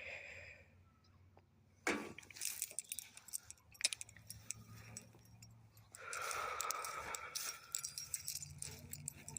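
Light jangling and clinking, a run of small irregular clicks and rattles starting about two seconds in, over a faint low hum.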